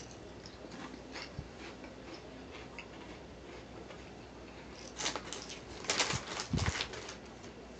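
Close-up chewing of potato chips with small crunches and mouth clicks, then loud crinkling rustles of a paper sandwich wrapper being handled, about five seconds in and again for about a second near six seconds.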